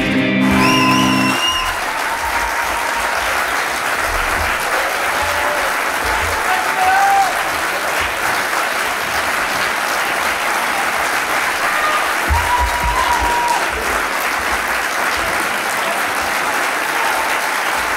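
Band's final chord on guitar and keyboard ringing and stopping a little over a second in, then a concert audience applauding steadily, with a few whistles.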